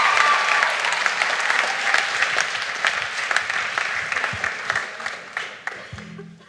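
Audience applauding in a theatre after a song. The clapping thins out and fades away over several seconds, ending in a few scattered claps.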